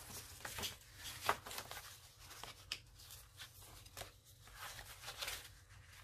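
Quiet rustling and scattered light ticks of paper as a handmade junk journal is handled and its pages are turned, with one sharper tap about a second in.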